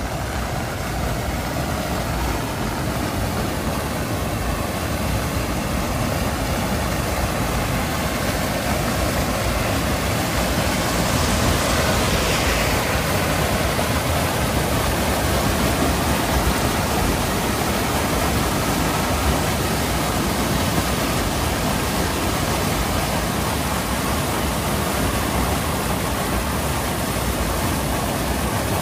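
Floodwater rushing and churning over a concrete drop in a stormwater drain: a steady, loud rush of water.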